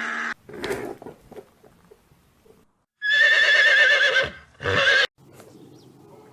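Horse whinnying: one long, quavering whinny about three seconds in, quickly followed by a short second one, after a few faint knocks in the first second or so.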